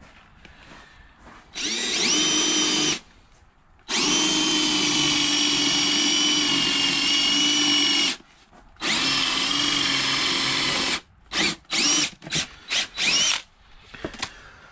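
DeWalt cordless drill boring a 3/4-inch hole through plywood into a sacrificial board beneath. It runs in three spells: the first short, rising in pitch as it spins up, the longest about four seconds. Near the end comes a string of short trigger blips.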